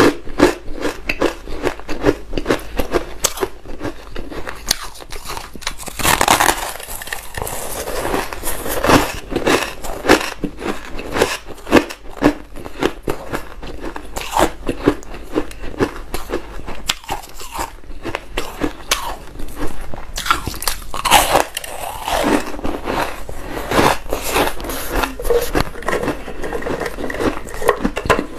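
A person biting into and chewing a block of frozen, dyed ice with a grainy texture: dense, irregular crunching and crackling, with a few louder bites.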